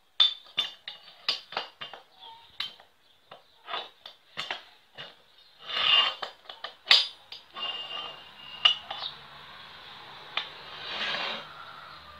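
Steel gears clinking and clattering against each other and the steel gearbox housing as they are handled and fitted onto its shafts: a quick irregular run of sharp metallic clinks with short ringing, and a couple of longer metal-on-metal scrapes, one about halfway and one near the end.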